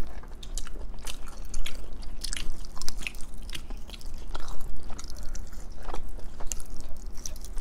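Two people biting and chewing buffalo wings: irregular wet smacks and clicks of eating over a steady low hum.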